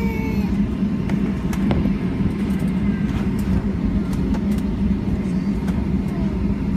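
Steady low rumble with a constant hum inside a Boeing 757 airliner cabin, with a few faint clicks.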